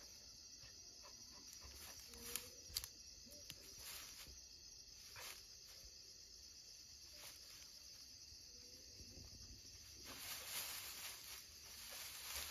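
Faint steady chirring of night insects, with two sharp clicks between two and three seconds in and a rustle of grass near the end.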